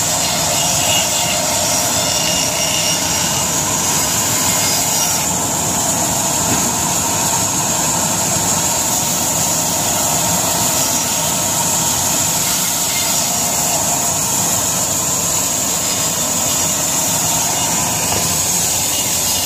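Belt-driven vertical band saw running steadily while its blade cuts through firewood logs fed by hand.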